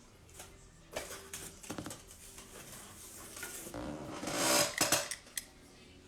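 Small clicks, taps and rustles of objects being handled on a tabletop, with a louder rustling scrape about four to five seconds in.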